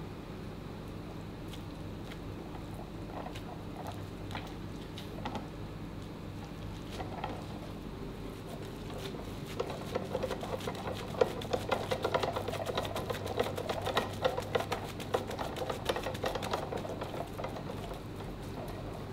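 A steady low hum, and from about half way a rapid run of light taps and knocks lasting several seconds.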